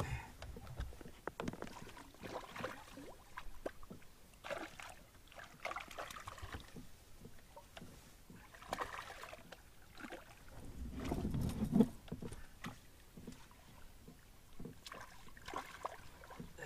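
Irregular small knocks and taps on a Nova Craft Prospector canoe's hull, with light sloshing of water alongside, while a hooked fish is reeled in and netted beside the canoe. About twelve seconds in there is a louder, low rush that ends in a sharp knock.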